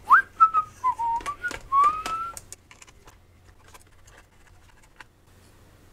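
A person whistling a few wandering notes for about two seconds, the pitch jumping up, dipping and rising again. Small clicks come from a precision screwdriver turning out the screws of a laptop hard drive's circuit board, then it goes quiet.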